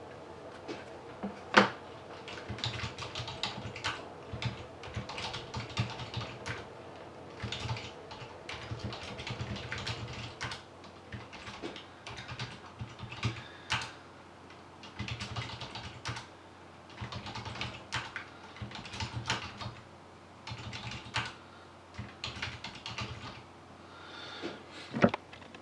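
Typing on a computer keyboard in irregular bursts with short pauses, entering a list of team names into a list randomizer. A sharp single click stands out about a second and a half in, and another near the end.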